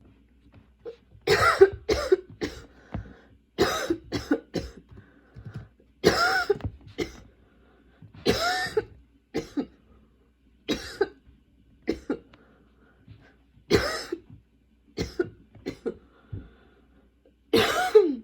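A girl's coughing fit: harsh coughs coming in clusters of a few at a time, about every two seconds, some with a short voiced rasp in them. It is the persistent, hard-to-stop cough of a chest or throat illness.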